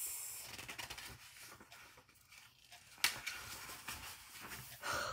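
Paper pages of a paperback picture book rustling as they are flipped, with a sharp paper snap about three seconds in and another short rustle near the end.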